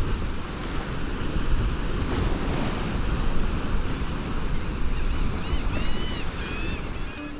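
Ocean surf washing on a beach, with wind buffeting the microphone in a low rumble. From about five and a half seconds in, a bird calls several times in short notes that rise and fall.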